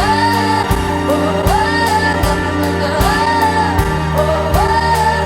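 A pop song playing: a singing voice holds wordless melodic phrases over a steady drum beat.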